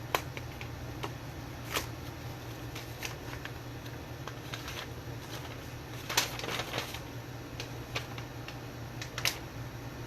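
A parcel being handled and opened: scattered sharp clicks and crinkling rustles of packaging, with a denser burst of crinkling about six seconds in, over a steady low hum.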